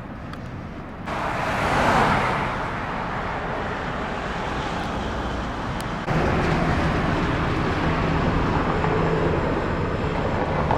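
Road traffic noise. A vehicle passes, swelling about a second in, then from about six seconds there is a louder, steady engine-and-tyre noise.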